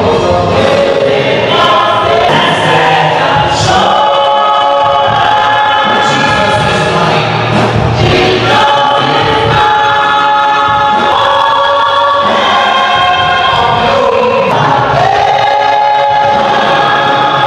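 Choir singing a gospel song, with long held notes.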